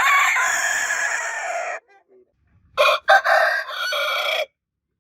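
Rooster crowing twice: a long crow that ends a little under two seconds in, then a second crow starting about three seconds in and lasting under two seconds.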